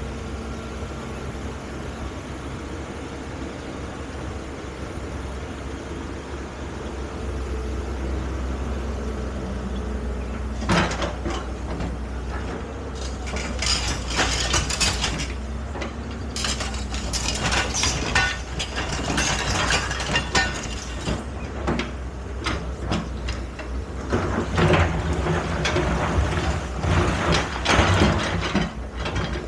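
Excavator engine running steadily; from about ten seconds in, repeated clanking and rattling come and go over the engine, thickest in two long stretches in the second half.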